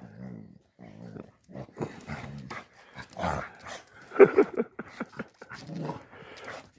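Several dogs making short, irregular noises at close range, with one louder bark about four seconds in.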